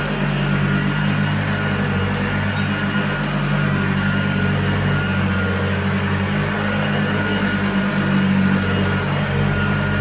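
1976 Hoover Junior U1012 upright vacuum cleaner, which has a metal fan, running steadily while it is pushed back and forth over carpet: an even motor hum with a higher whine on top.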